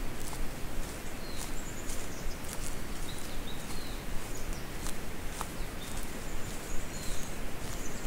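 Footsteps crunching on a track of dry leaf litter, irregular and unhurried, while small birds give short, high chirps now and then.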